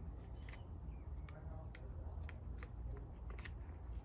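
Scattered small clicks and crackles of hands picking at a toy mystery egg and its amber gel, about a dozen irregular ticks.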